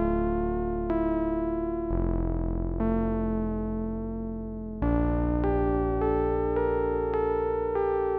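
Prophet-5 Rev 4 analog polyphonic synthesizer playing sustained chords over a low bass, changing chord about once a second with one longer held chord midway.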